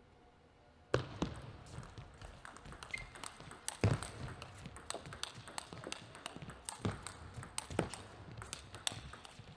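Table tennis rally: the celluloid-type ball clicking sharply off paddles and the table in quick succession, starting about a second in and running as a fast, irregular string of hits and bounces.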